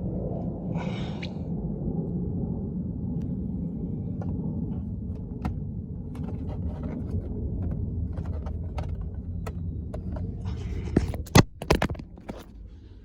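Close handling noise, a low rubbing rumble with scattered small clicks, as small plastic parts are handled at the microphone. About 11 seconds in comes a quick run of sharp, loud clicks.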